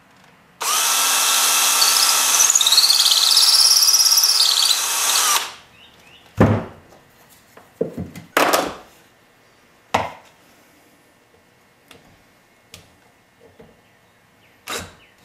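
Cordless drill running steadily for about five seconds, boring a pilot hole through soft pine with an 11/64 twist bit. It is followed by a few short knocks and clatters as the drill is set down on the bench and handled.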